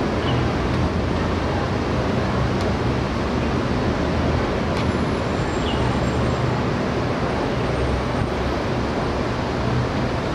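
Steady outdoor background noise: an even low rumble with hiss over it, with a couple of faint clicks.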